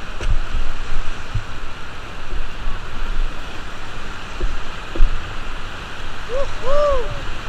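River rapids rushing past a raft: a steady hiss of moving water with scattered low thumps. Near the end, a few short calls rise and fall in pitch.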